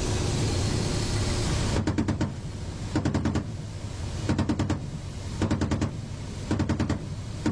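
Ka-52 attack helicopter's 30 mm cannon firing five short rapid bursts about a second apart, starting about two seconds in, over the steady low drone of the helicopter's engines and rotor heard from inside the cockpit.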